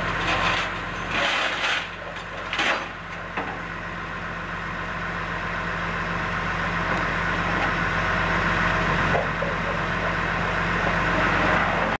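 Flatbed tow truck's engine idling, with a steady low hum that grows gradually louder through the second half. A few short bursts of noise come in the first three seconds.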